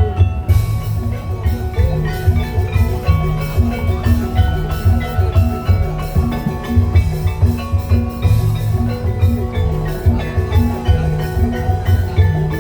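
Tongklek music: a Javanese percussion ensemble playing a steady rhythm of deep drum beats under quick, ringing, tuned mallet-like notes.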